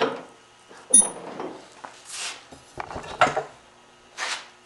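A wooden board being set and clamped in a bench vise: a sharp metallic clink about a second in, followed by several knocks and scrapes of wood and metal.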